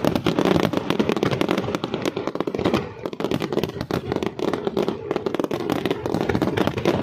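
Fireworks barrage: a dense, rapid run of bangs and crackles with no pause, easing briefly about three seconds in and then building again.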